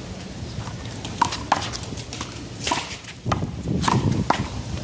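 A one-wall handball rally: a small rubber handball slapped by hand and smacking off the wall and pavement in a string of about six sharp pops, some in quick pairs.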